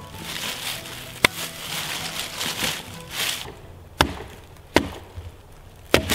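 Background music with a single sharp knock about a second in, then three sharp chops of a hand-forged Trekker axe into poplar wood near the end, about a second apart, the last splitting a piece off.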